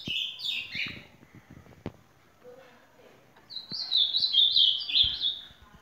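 Ultramarine grosbeak (azulão) singing: a phrase of clear whistled notes stepping up and down ends about a second in, and a second full phrase follows after a short pause, from a little past halfway to near the end.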